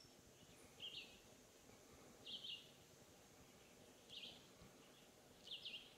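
Faint, short, high-pitched chirp calls, each a quick two- or three-note figure, repeated four times about one and a half seconds apart over a quiet background.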